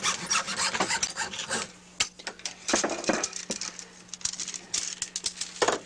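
Split bamboo cane strips scraping and rubbing against each other and the bench as they are handled and trimmed, in irregular strokes with short pauses. A faint steady hum runs underneath.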